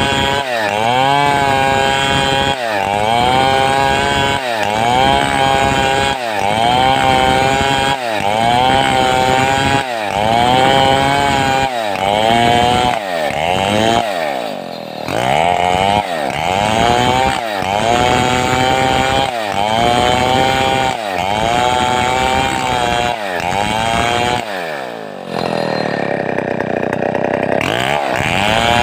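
Large Stihl 070-type two-stroke chainsaw cutting wood with a rocking swing. Its engine speed dips under load and recovers in a regular cycle about once every second and a quarter. Near the end it holds one longer, slower dip before picking back up.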